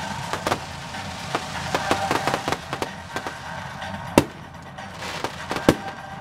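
Aerial fireworks shells bursting: a rapid, irregular run of cracks and bangs, with the loudest bang about four seconds in and another near the end.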